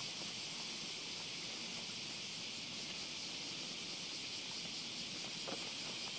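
Steady, faint high hiss of insects chirring in the riverside grass and reeds.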